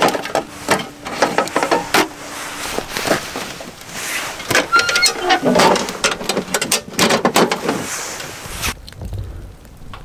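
Busy clatter of knocks and clicks from gear and tableware being handled and set down, falling away to a quieter low rumble near the end.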